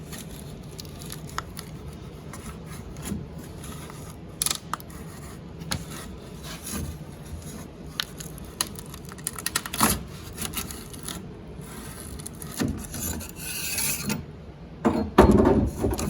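Metal putty knife scraping and rubbing as it is worked slowly under a glued-on emblem to cut the old adhesive, with scattered sharp clicks. A dull thump near the end.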